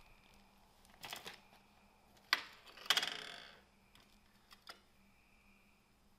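Metal clicks and a brief rattle from a Schwinn mountain bike as it is brought to a stop and stood on its kickstand. A few quick clicks come about a second in, then a sharp click, then a louder clack near the middle that fades in a short rattle.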